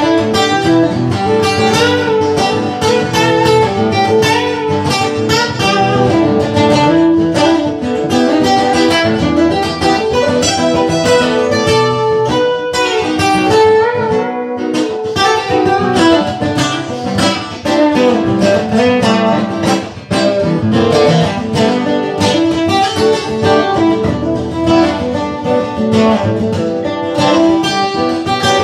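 Acoustic guitar played solo: a steady, rhythmic run of picked and strummed chords.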